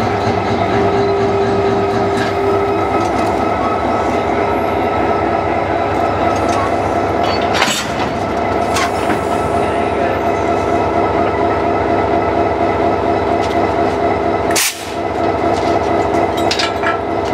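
Diesel locomotive engine idling close by, a steady drone with several tones in it, while it stands coupled to a coach. Two brief sharp sounds cut through it, about halfway through and again near the end.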